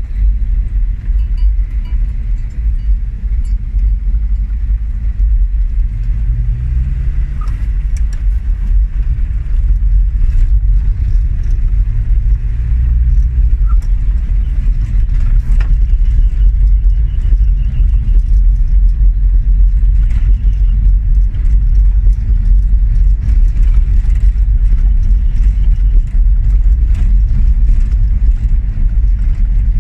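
Steady low rumble of a 1982 Mazda B1600 pickup driving on a rough dirt track, heard from inside the cab, with scattered knocks and rattles from the bumpy ground. It grows a little louder from about halfway.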